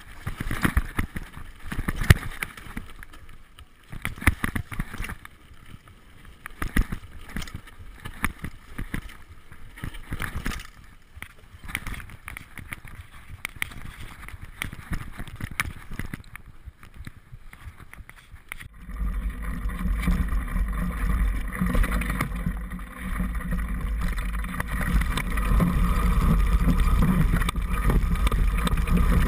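Mountain bike riding down a rough dirt trail, its frame and front fork rattling and knocking irregularly over bumps. About 19 s in, a sudden louder, steady low rumble takes over and continues to the end.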